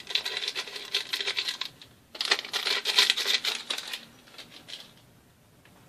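Paper sachet of baking powder crinkling as it is shaken out over a stainless steel bowl of flour, in two bursts of rustling, the second louder.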